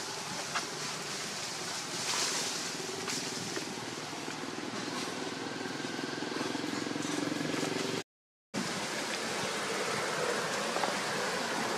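Steady outdoor background hiss with faint, indistinct distant sounds, broken by a half-second gap of total silence about eight seconds in.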